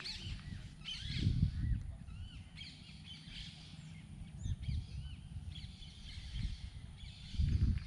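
Birds chirping with many short, rising-and-falling calls, over gusts of wind buffeting the microphone, which rumble loudest about a second in and again near the end.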